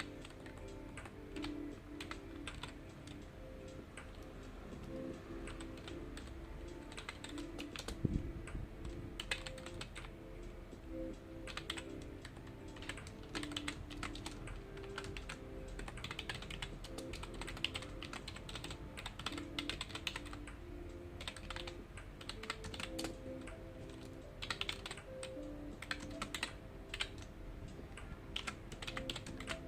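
Typing on a computer keyboard: quick runs of key clicks with short pauses between them, and one heavier knock about eight seconds in. Soft background music plays underneath.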